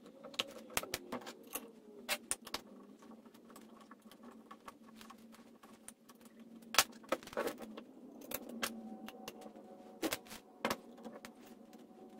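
Irregular light clicks, taps and knocks of hard plastic and small metal parts being handled: a Porter-Cable finish nailer's cylinder cap being seated by hand and its screws fitted with a hex key. A few louder knocks come about seven seconds in and again near the end.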